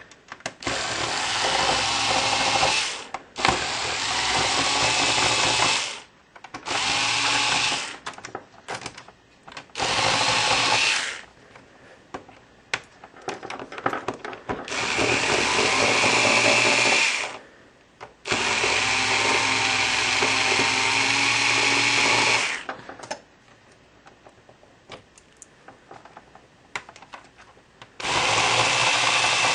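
A small power screwdriver motor running in about seven short bursts of one to four seconds each, with short pauses between them, while backing out screws from a laptop's keyboard area.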